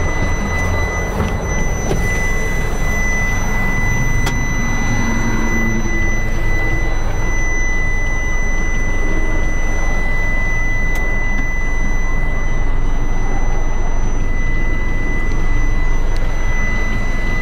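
Isuzu FTR's 5.2 L 4HK1TC turbo-diesel idling, heard from inside the cab: a steady low rumble with a constant high-pitched whine over it.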